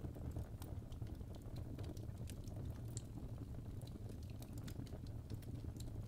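Fire crackling in a fireplace: irregular sharp pops and snaps, several a second, over a low steady rumble of burning.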